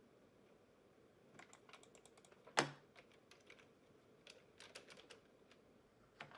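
Irregular light clicks of keys or buttons being pressed, with a louder knock about two and a half seconds in and another near the end.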